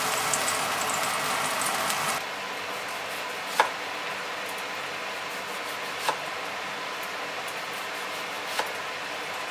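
Chicken-and-leek yakitori skewers sizzling and crackling on a grill. About two seconds in, this gives way to a kitchen knife slicing a lemon on a wooden cutting board: three sharp knocks as the blade meets the board, a couple of seconds apart.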